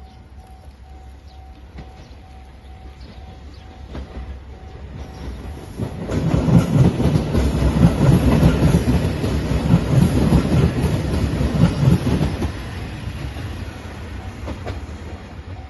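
Level crossing bell ringing in quick, even pulses as a three-car JR Shikoku 2700 series diesel limited express train runs over the crossing. The train is loudest for about six seconds in the middle, with a rhythmic wheel clatter over the rail joints, then fades away as the bell is heard again near the end.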